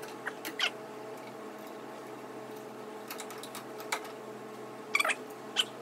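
Scattered light metallic clicks and clinks of hand tools working on a VW Beetle's front suspension, with a small cluster about three seconds in and another near the end, over a steady hum.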